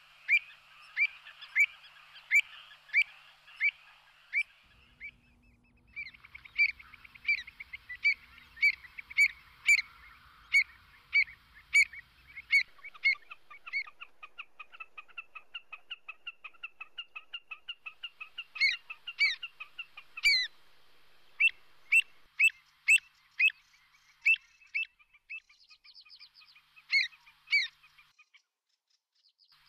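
Pied avocet giving its sharp, fluty 'kluut' call over and over, about two calls a second with a short break about five seconds in, the alarm calling of a parent with chicks close by. Other faint bird calls sound behind it.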